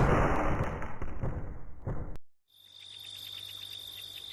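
Cricket-like insect chirping: a steady high trill pulsing several times a second, which starts after a sudden cut about two seconds in. Before the cut, a noisy sound fades away.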